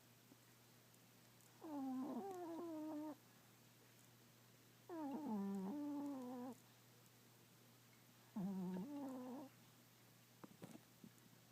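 A sleeping Chihuahua snoring: three drawn-out, pitched, wavering snores a few seconds apart, in time with its slow breathing.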